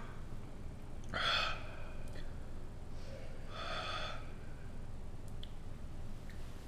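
A man breathing out hard through his mouth twice, a few seconds apart, against the burn of a superhot chili pepper he has just eaten.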